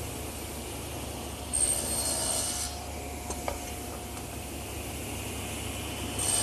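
Table saw running steadily, making a tenon shoulder cut across a wooden rail: a louder burst with a high whine for about a second, then a sharp click. A second cut begins right at the end.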